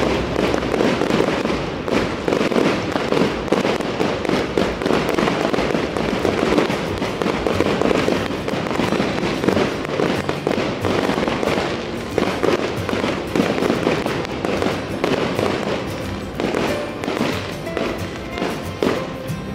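Aerial fireworks display: a continuous rapid crackle and popping of bursting shells and crackling stars, thinning slightly near the end.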